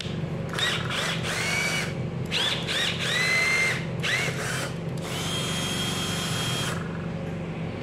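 Reassembled red cordless drill test-run with its trigger: a series of short bursts, the motor whining up in pitch and dropping away each time, then one steady run of about a second and a half near the end.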